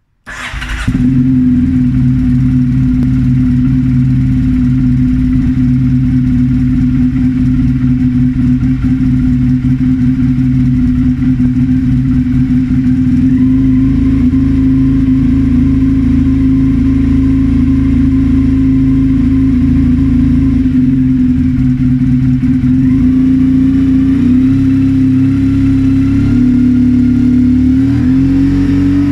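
Motorcycle engine started with the electric starter, catching within about a second, then idling steadily; the revs rise slightly near the end.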